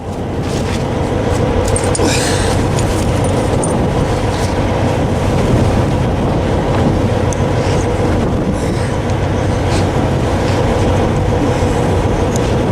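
Semi truck's diesel engine idling close by, a steady hum, with scattered metallic clinks of tire chains being handled.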